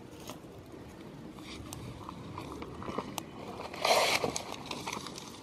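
Small campfire of dry twigs and kindling crackling with scattered sharp pops. About four seconds in there is a louder crunching rustle.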